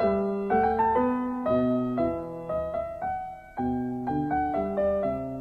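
Background piano music: a gentle run of single notes and chords, each note fading after it is struck, with a short dip just past halfway before the playing resumes.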